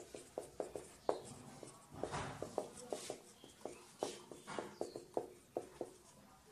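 Marker pen writing block capitals on a whiteboard: a run of short, irregular taps and scratchy strokes, a few each second.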